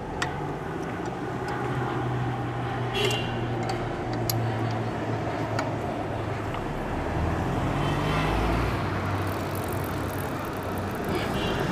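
Motorcycle engine running steadily with the rear wheel turning on the stand. A few sharp metallic clicks from a spoke wrench on the wheel's spokes come in the first half.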